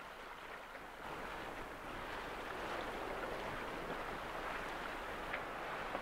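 Steady rush of sea water and wind heard from a sailing yacht under way, growing a little louder about a second in.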